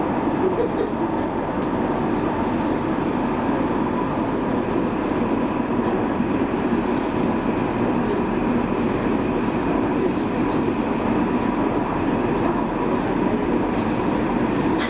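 Electric rail vehicle of Rotterdam's RET metro and tram network running along the track: a steady rumble with a faint steady high tone and light rail clatter.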